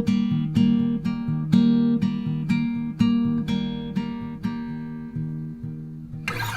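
Background music: acoustic guitar plucking notes at a steady pace, with a strum near the end.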